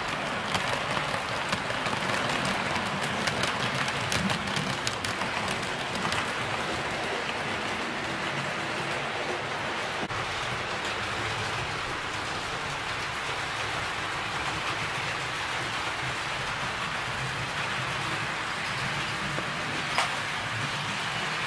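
HO-scale model passenger train, hauled by a C57 steam locomotive model, rolling along the track: a steady rushing rumble of metal wheels on rail. There are quick clicks as the wheels cross rail joints and turnouts during the first few seconds, and one sharp click near the end.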